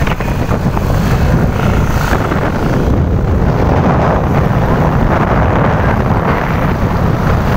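Steady wind rush buffeting the microphone on a moving motorcycle, with the motorcycle's engine running underneath.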